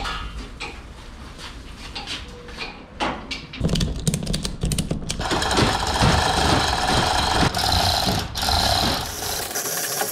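Manual chain hoist being hauled by its hand chain: a fast, continuous rattling clatter of chain links running over the hoist, which starts about a third of the way in and thickens from about halfway. Before it come a few scattered knocks.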